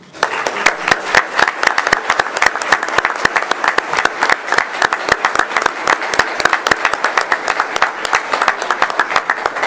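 Audience applauding: many people clapping at once, breaking out suddenly and holding steady.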